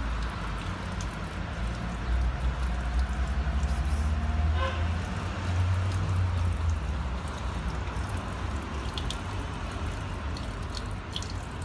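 Water running from a tap into a stone fountain basin, over a steady low rumble.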